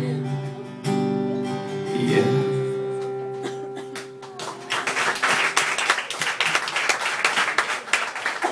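Acoustic guitars strum their closing chords and let them ring, fading away over about four seconds. Then the audience applauds.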